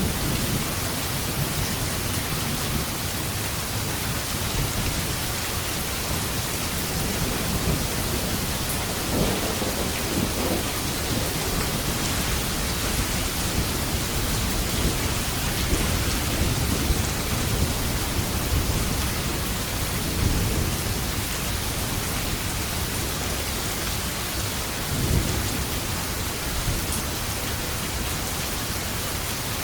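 Steady heavy rain with thunder rumbling low several times, rolling swells around a third and two thirds of the way through and again near the end.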